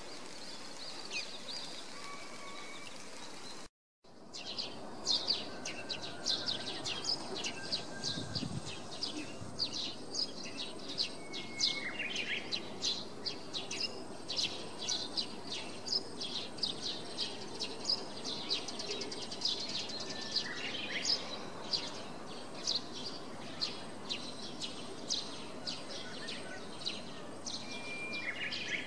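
Many small songbirds chirping and calling together: a dense run of short, high chirps with a few whistled calls. The sound cuts out for a moment about four seconds in, then returns busier.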